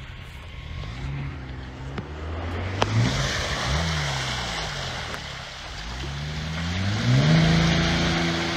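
Jeep's engine revving hard in a deep mud hole, the pitch rising and falling several times before it is held at high revs near the end. Spinning tyres churn and throw muddy water along with it.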